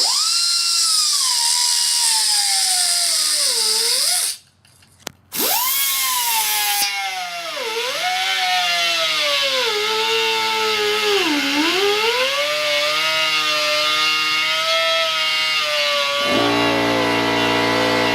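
Pneumatic cut-off grinder cutting flat steel stock: a high whine whose pitch sags each time the cut-off wheel bites into the steel and recovers as the load eases. It stops briefly about four seconds in and starts again. Near the end a steadier, lower-pitched hum takes over.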